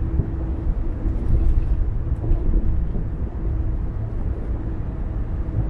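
Car driving along the road: a steady low rumble of tyres and engine, with a faint steady hum above it.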